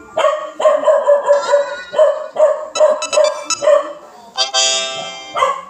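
A Samsung Galaxy A22 notification sound played through the phone's speaker: a quick run of short pitched tones, about three a second, then a brighter, longer tone about four and a half seconds in.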